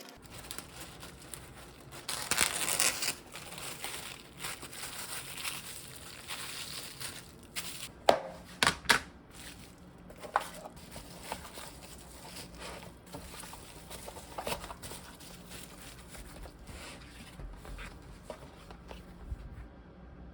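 Crinkling and rustling of handled packaging, loudest a couple of seconds in, with scattered sharp clicks and three loud clacks in quick succession a little before halfway.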